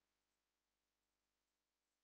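Near silence: digital silence with only a faint steady hum floor.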